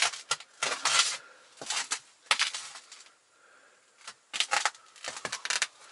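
Hand tools and small metal parts being handled: irregular clusters of sharp clinks and clatters, with a quiet gap about three to four seconds in.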